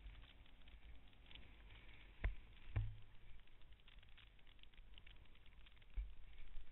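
Snowboard sliding over snow with a fine scraping crackle over a low wind rumble on the microphone. Sharp knocks come about two seconds in, again half a second later, and once more near the end.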